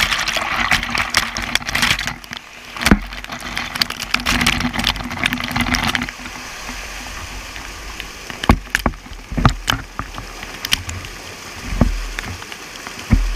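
Whitewater rushing and splashing right over a half-submerged action camera, with sharp knocks of water slapping the housing. The rush is loudest for the first six seconds or so, then quieter.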